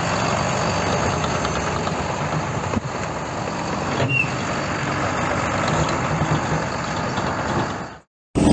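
Heavy diesel vehicle engine running steadily with a dense mechanical rumble, a short high squeak about four seconds in; the sound cuts off near the end.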